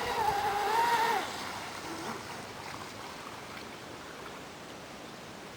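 RC boat's 6S LiPo brushless electric motor whining at a high, steady pitch, then falling away and stopping about a second in. Faint water and wind noise remains afterwards.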